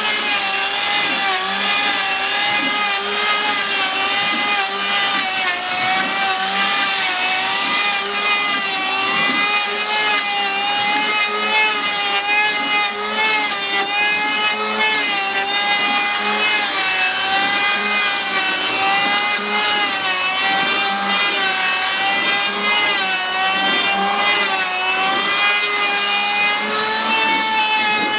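Electric power tool motor running continuously, its high whine wavering slightly in pitch as the load on it changes.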